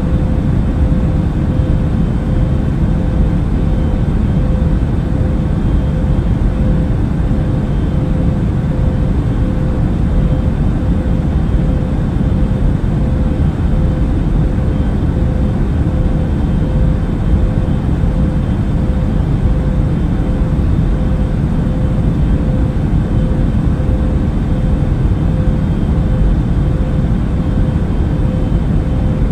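Airliner cabin noise in flight: a steady, even low rumble of engines and airflow, with a constant hum riding on top.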